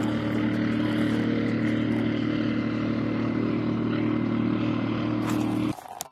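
An engine running steadily at constant speed: an even, low hum with a hiss over it, cutting off abruptly near the end.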